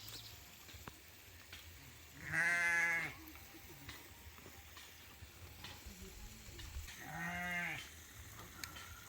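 A sheep bleating twice, two wavering calls about four and a half seconds apart, the first a little louder.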